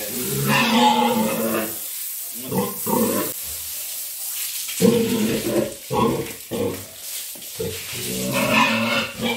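Heavily pregnant F1 crossbred sow grunting loudly in several drawn-out bouts.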